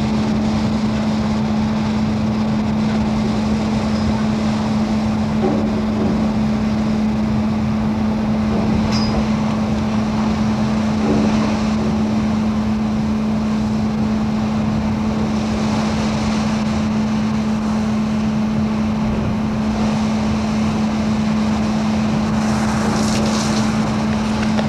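Steady wind and sea noise on the open deck of a Great Lakes freighter in heavy weather, over a constant low hum. A louder rush of noise comes near the end.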